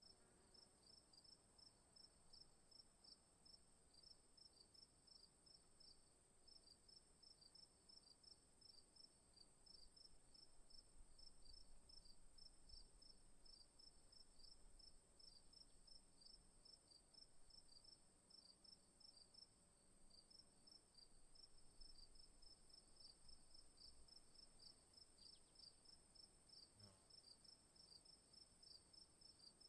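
Crickets chirping, faint: a steady high-pitched trill with rhythmic chirps at about three a second.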